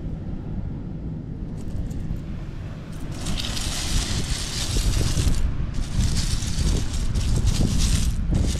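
A hand sifting through a pile of dry seashells, the shells rattling and scraping against each other in spells from about three seconds in. Under it, wind buffets the microphone with a low rumble.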